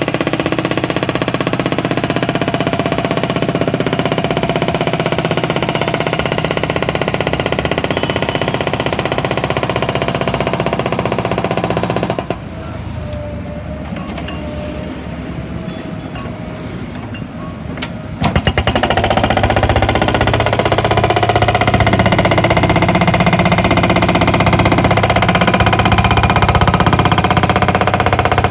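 JCB HammerMaster 2160 hydraulic breaker on a JCB 3DX backhoe loader hammering tarmac in rapid blows over the running engine. It stops for about six seconds partway through, then starts again.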